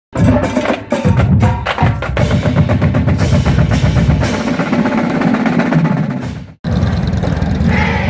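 Percussive intro music of rapid drum hits and rolls, stopping abruptly about six and a half seconds in; after a brief gap, outdoor noise begins.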